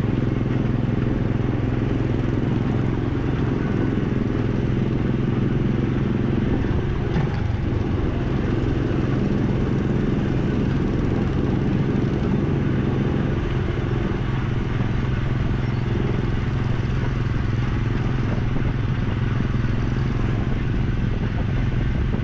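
Small gasoline engine of a Tomorrowland Speedway car running steadily as the car drives along the track, a constant low drone heard close up from the car's hood.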